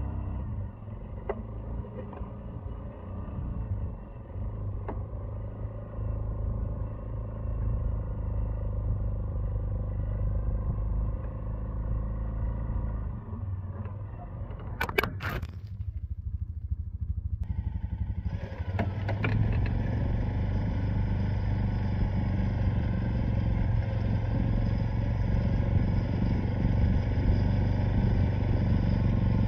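Suzuki ATV engine running steadily while the quad is winched through deep snow. About halfway through the sound drops out briefly, then comes back louder and brighter.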